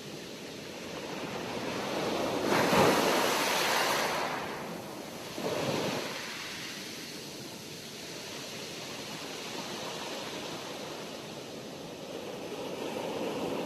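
Sea waves breaking and washing in a steady rushing surf. There is a big surge about three seconds in, a smaller one a couple of seconds later, a calmer wash, and another wave building near the end.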